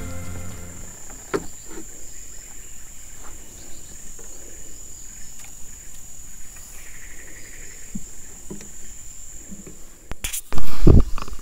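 Steady high-pitched insect trill, like crickets, with a few faint knocks and clicks. About ten seconds in comes one very loud, low thump, the loudest sound here.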